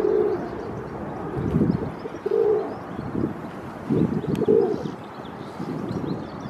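A pigeon cooing: short low notes spaced about two seconds apart. Faint high chirps of small birds sound over gusts of low wind rumble on the microphone.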